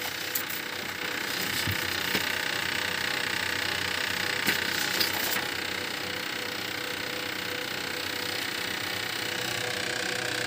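HP LaserJet laser printer running with a steady mechanical hum and whir, with a few light clicks in the first half as the printed page is handled.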